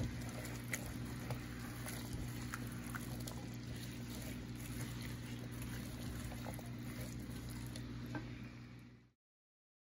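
Diced onions sizzling in olive oil in a pan, a steady frying hiss with scattered light crackles, over a steady low hum. The sound fades and cuts off about a second before the end.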